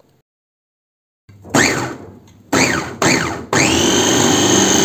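Electric food chopper (Moulinex-type) motor pulsed three times, each burst winding up with a rising whine, then held on in a steady high whine, puréeing cooked vegetables and liver into baby soup.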